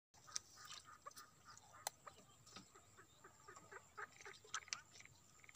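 Faint clucking of domestic fowl, short calls in quick succession, with a few sharp clicks and knocks among them.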